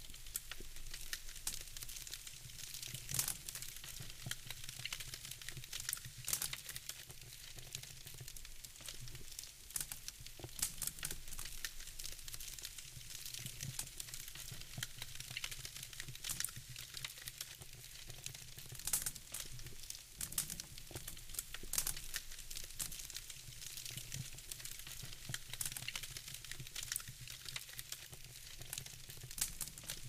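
Wood fire in a fireplace crackling: irregular sharp pops and snaps over a soft hiss, with a low steady hum underneath.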